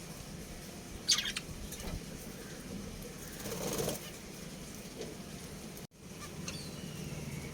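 Budgerigars in a cage: a short, sharp chirp about a second in, then a flurry of wing flapping a little past halfway, with faint chirps after a brief drop-out in the sound.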